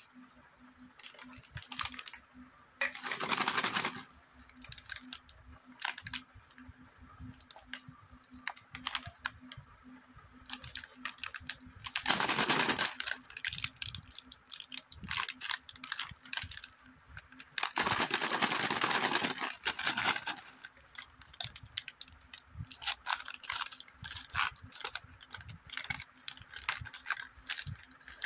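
Plastic candy and snack wrappers crinkling and crackling as they are handled and opened, with small clicks throughout and three louder stretches of crinkling, about three, twelve and eighteen seconds in.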